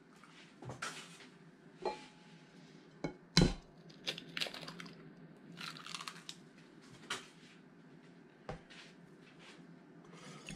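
An egg cracked against a glass mixing bowl with one sharp knock a few seconds in, among scattered lighter clicks and taps of handling in the bowl. Near the end a wire whisk begins working in the bowl of flour and egg.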